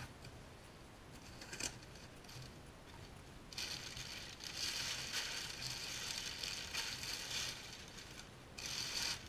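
Crumpled packing paper rustling and crinkling as it is pulled out of a cardboard box. The paper is mostly quiet at first, with a single click about a second and a half in, then crackles steadily from about three and a half seconds on, with a last short burst just before the end.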